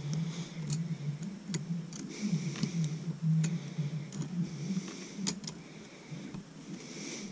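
Needle-nose pliers working the ends of electrical wires to straighten them: irregular sharp clicks and short scrapes of metal on wire, over a steady low hum.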